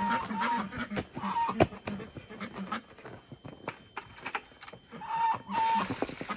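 Chickens clucking, with scattered knocks as pans and a plastic bucket are handled. About five and a half seconds in, water poured from the bucket starts splashing into a black waterer pan.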